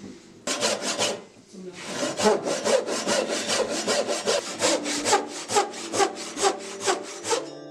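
Handsaw cutting across a hard maple block. A few strokes start about half a second in, then there is a brief pause, and then the cut runs as a steady rhythm of about two strokes a second until just before the end.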